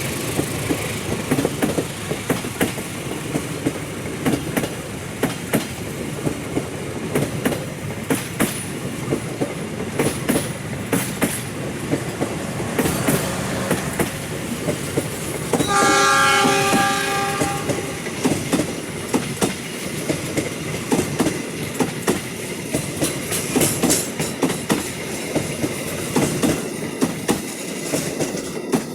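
Malabar passenger train running past, its wheels clicking steadily over the rail joints. About halfway through, the locomotive sounds one horn blast of about a second and a half.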